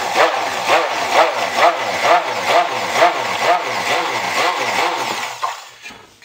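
Immersion stick blender running in a stainless steel pot of cold-process soap batter. Its motor pitch dips and rises about twice a second, and it cuts off near the end. The blending thickens batter that is too thin to pour.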